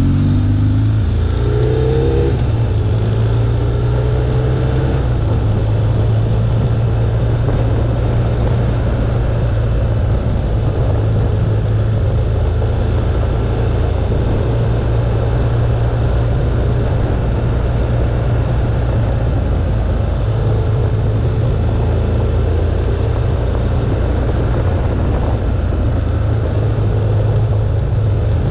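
BMW R1200GS's air/oil-cooled boxer twin under way on the road, picking up revs in the first couple of seconds and then holding a steady cruise. Heavy wind rumble over the microphone and tyre noise run with it.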